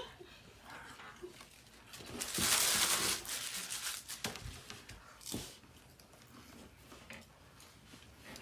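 Paper taco wrapper crinkling loudly for about a second, starting about two seconds in, followed by a few soft knocks.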